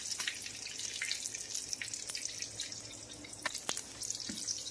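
Fried apple pies sizzling in hot oil, a steady crackling hiss, with a couple of light clicks of a utensil about three and a half seconds in.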